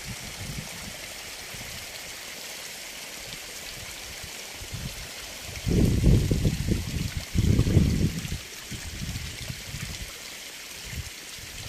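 Water running out of a gated irrigation pipe into the furrows, a steady hiss and trickle. Two bursts of low rumble come about six and eight seconds in.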